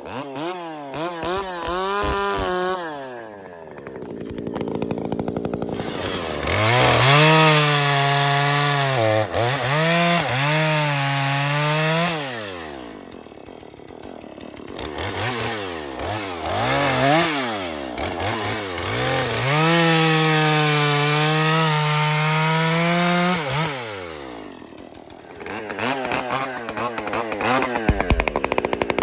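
Two-stroke chainsaw being revved up and down over and over. Twice it is held at full throttle for several seconds, then drops back toward idle between.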